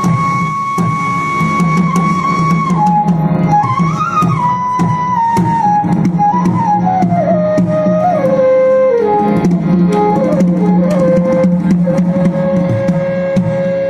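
Live Himachali Nati folk music: a single melody line holds a high note, wanders down over several seconds and settles on a long, lower held note, over steady drumming and a low sustained drone.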